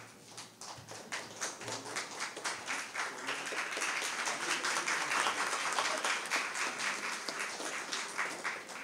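Audience applauding: scattered claps that build into a full round of applause over the first few seconds, then thin out near the end.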